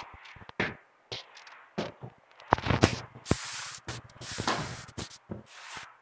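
Rubber floor squeegee pushed and pulled across a wet floor with detergent water, a run of uneven swishing, scraping strokes, with a few sharper knocks near the middle.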